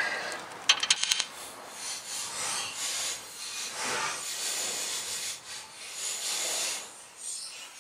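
Metal brake parts being worked apart: a few clicks about a second in, then repeated scraping and rubbing as the caliper comes off the brake pads.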